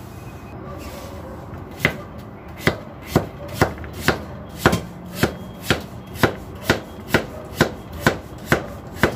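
Kitchen knife chopping young green papaya into strips on a cutting board: sharp knocks at a steady pace of about two a second, starting about two seconds in.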